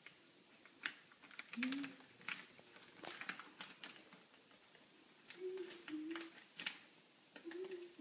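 Clear plastic bag crinkling and clicking faintly as its top is pressed closed by hand, with a few short low tones heard about two, five and seven seconds in.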